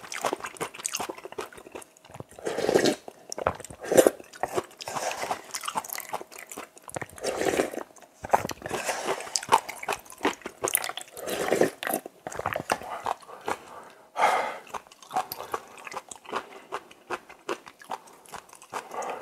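Close-miked eating of spicy kimchi cup ramen: repeated slurps of noodles and broth with chewing between them, and a few louder slurps spread through.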